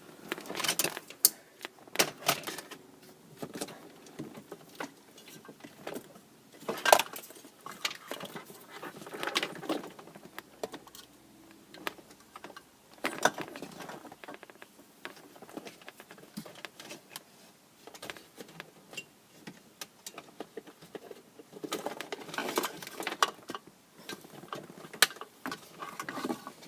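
Wiring harness plugs and plastic dash parts being handled: irregular rattling, rustling and sharp clicks of plastic connectors and wires being sorted through and pushed together.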